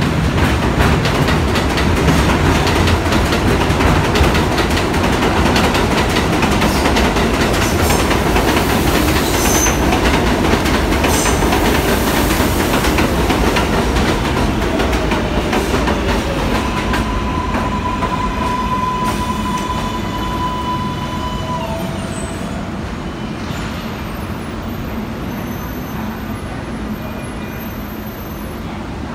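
A 7 subway train of R188 cars running along the elevated platform, its wheels clattering over the rail joints, with a brief high wheel squeal in the middle. The train noise gradually fades, leaving a steady electric motor whine for several seconds in the later part.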